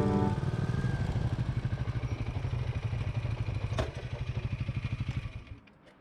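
Royal Enfield Meteor 350 single-cylinder motorcycle engine idling with a steady low putter as the bike comes to a stop, with a single sharp click about four seconds in; the engine sound dies away near the end.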